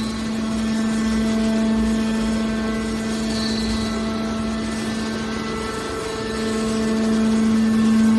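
Hydraulic can baler's power unit running, a steady machine hum with a whining tone, growing louder over the last couple of seconds.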